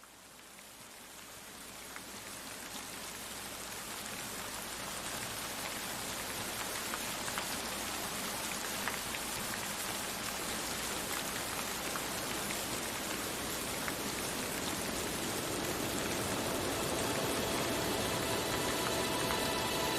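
Rain falling steadily, fading in over the first few seconds, with scattered individual drops ticking through it. Soft sustained music tones come in near the end.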